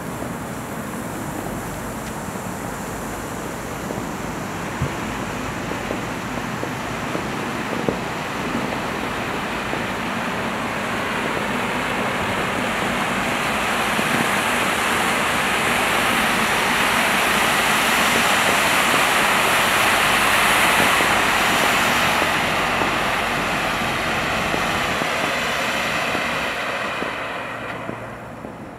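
Conic firework fountains hissing steadily as they spray sparks, the rushing hiss swelling toward the middle and dying away near the end as they burn out.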